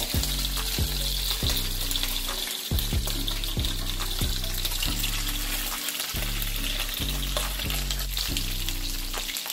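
Panko-breaded halalu (young bigeye scad) sizzling steadily in hot oil in a frying pan, with a third fish laid in partway through. A background music beat plays underneath.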